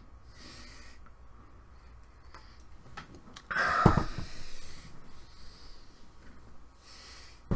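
A man breathing close to the microphone in a pause between sentences, with a louder breath about halfway through and a few small clicks.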